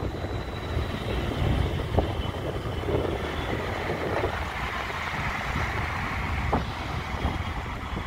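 Steady road and traffic noise from a moving vehicle, with wind gusting on the microphone.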